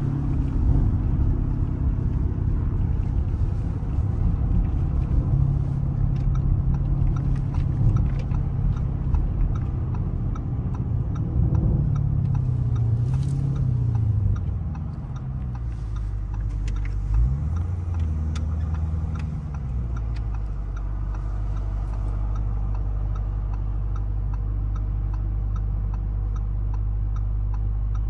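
The 4.0-litre twin-turbo V8 of a Lamborghini Urus Performante with its Akrapovič exhaust, heard from inside the cabin: running under way with its pitch rising and falling for the first half, then idling lower and steadier from about halfway, with a brief rise and fall a couple of seconds later.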